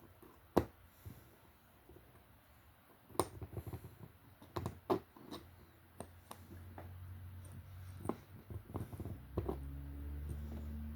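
Scattered clicks and light taps of small metal scope-mount parts being handled, with a low steady hum coming in about halfway through.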